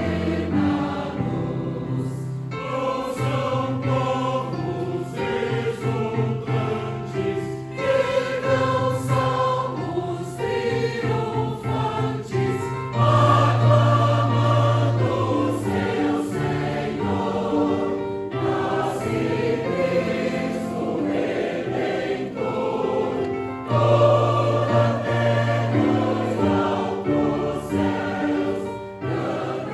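Church choir singing a medley of traditional Christmas carols.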